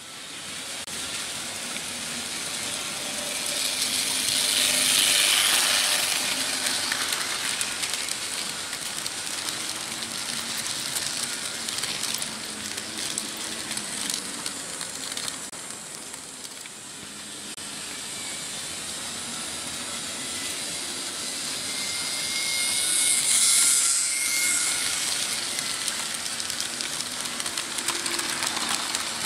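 Märklin H0 model freight train rolling over stamped-steel M-track: a steady rush of metal wheels on the rails with a faint hum underneath. It swells as the wagons pass close, about five seconds in and again near twenty-three seconds.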